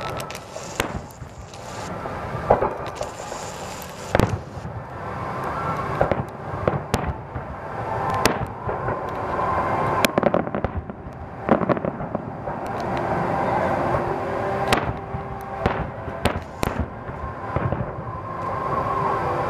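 Fireworks display bursting: a series of sharp bangs at irregular intervals, sometimes two or three close together, over a steady background rumble.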